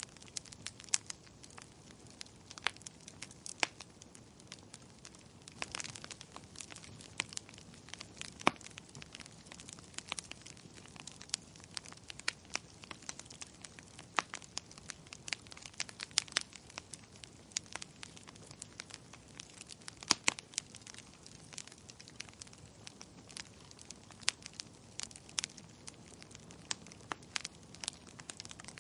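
Wood fire burning in a fireplace, crackling: irregular sharp pops and snaps, some much louder than others, over a soft steady rush of the flames.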